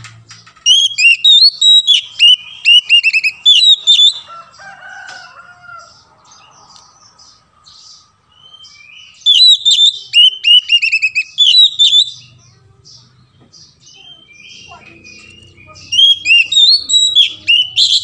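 Oriental magpie-robin singing: three loud bursts of rapid, sharply gliding whistled notes, starting about a second in, about nine seconds in and about sixteen seconds in, with softer chatter in between.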